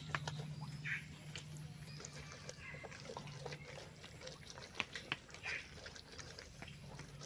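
Ripe jackfruit pulp being squashed and rubbed by hand against a woven bamboo sieve to press out its juice: irregular wet squelches and faint crackling scrapes on the cane. A steady low hum runs underneath.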